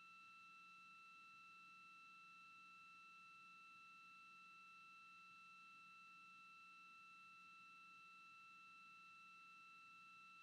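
Near silence with a faint, steady, high-pitched electronic whine that never changes in pitch or level.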